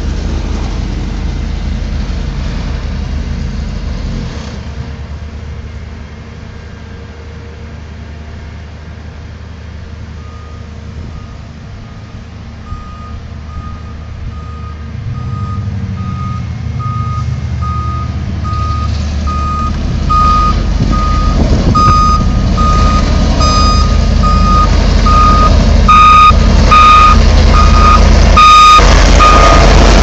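Heavy road-construction machinery: a low diesel engine rumble, with a reversing alarm that starts beeping about a third of the way in and repeats evenly. The beeping and the machine noise grow louder toward the end.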